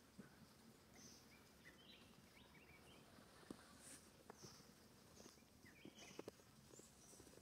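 Near silence: faint outdoor ambience with scattered short, high bird chirps and a few soft clicks.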